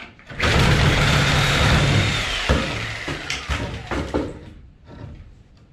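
A truck or similar heavy vehicle engine goes by, loud at first and then fading away over about three seconds, with a few sharp knocks near the middle.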